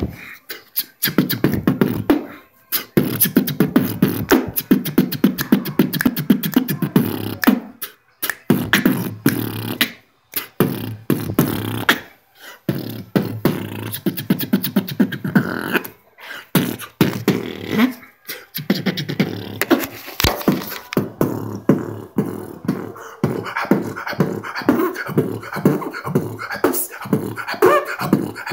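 A man beatboxing: a fast run of mouth-percussion clicks and pops over a low voiced tone, stopping briefly every couple of seconds and starting again.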